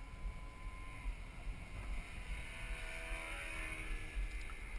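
Engine of a radio-controlled model airplane flying high overhead, a distant steady drone whose pitch bends up and back down as it manoeuvres. Low wind rumble on the microphone underneath.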